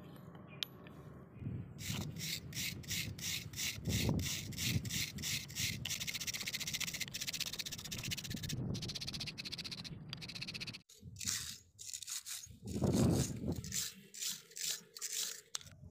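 Wire brush scrubbing rust off steel pliers in quick back-and-forth strokes, about three a second, with a short break about eleven seconds in.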